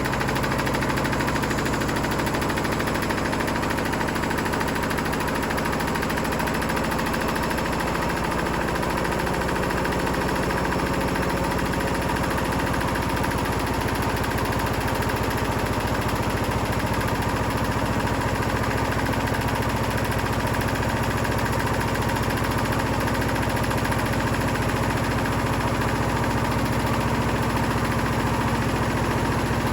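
Hotpoint Smart Tech WMFUG742 washing machine running at a steady drum speed with a brick inside. Its motor hum is steady under continuous rattling, knocking and vibration from the loaded drum shaking the machine.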